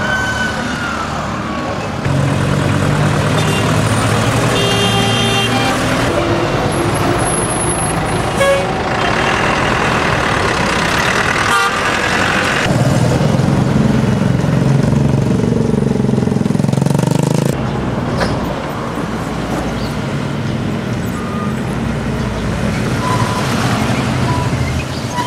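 Street traffic with buses running past at close range: a steady engine rumble that grows heavier about halfway through, as a large bus goes by.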